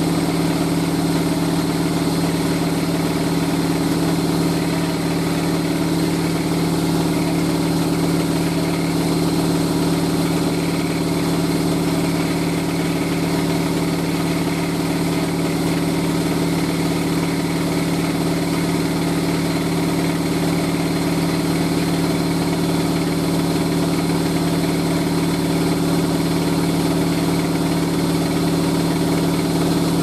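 Hoover A3060 front-loading washing machine running mid-cycle: a steady, even motor hum that does not pause or change.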